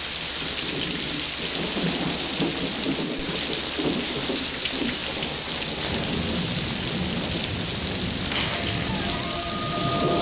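Heavy rain falling steadily, with thunder rumbling under it.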